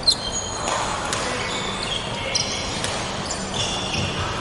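Badminton play on a wooden indoor court: athletic shoes squeak repeatedly on the floor, and a few sharp clicks of shuttlecocks being struck come through, the loudest just after the start.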